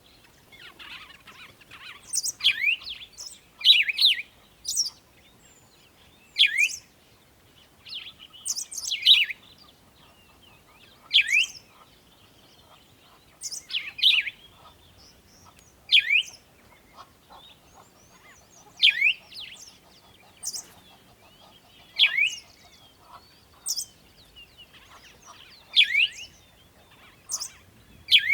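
A bird chirping over and over, one short sharp call about every two to three seconds.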